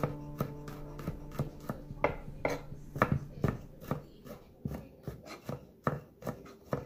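Chef's knife mincing garlic on an end-grain wooden cutting board: irregular knocks of the blade on the wood, a few a second.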